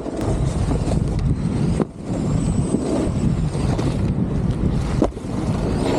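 Snowboard sliding and scraping over packed snow with wind rushing over the helmet-mounted microphone while riding at speed. The sound briefly drops out about two seconds in, and there is a short knock about five seconds in.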